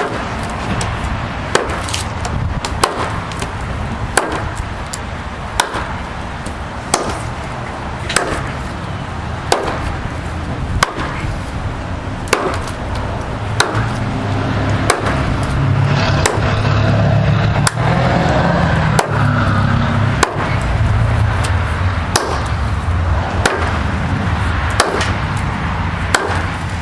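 Hatchet chopping into a log, the blade striking the wood in a steady rhythm of about one blow every second and a half. A steady low rumble runs underneath and swells through the middle.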